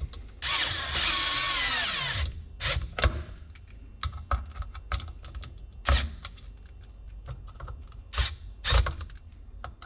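Cordless drill-driver running for about two seconds as it drives a screw fixing a speaker into a car door, followed by scattered clicks and knocks of the screws and tool being handled.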